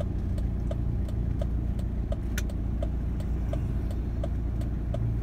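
Turn-signal indicator ticking evenly, about two and a half ticks a second, over the steady low running of the vehicle's engine as it turns.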